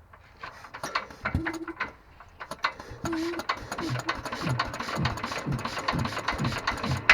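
Petter AS single-cylinder stationary engine being turned over by hand without firing, with a regular chuffing of about two strokes a second. The magneto is giving no spark, which the owner puts down to a faulty magneto.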